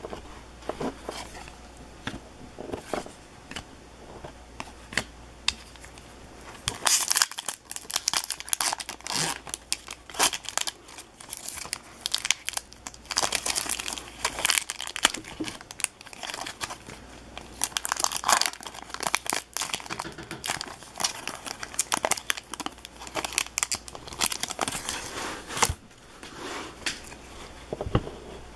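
Foil hockey card pack wrapper crinkling and tearing as the pack is opened and the cards pulled out, after a few seconds of soft card-handling clicks. The crinkling goes on in quick bursts and dies down near the end.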